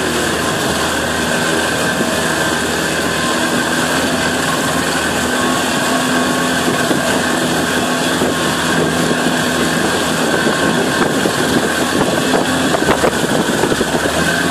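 Outboard motor of a small inflatable boat running steadily under way, with a constant hum, wind and rushing water. The sound grows choppier with splashing near the end.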